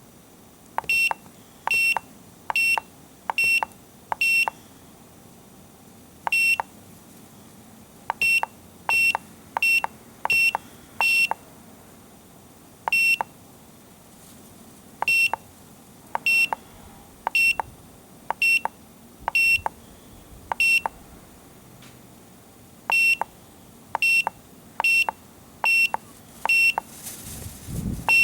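Automotive diagnostic scan tool beeping as its keys are pressed to step through menus: about two dozen short, identical high beeps at irregular spacing, with a brief rustle near the end.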